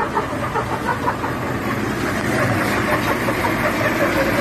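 Heavy diesel truck engine running steadily close by.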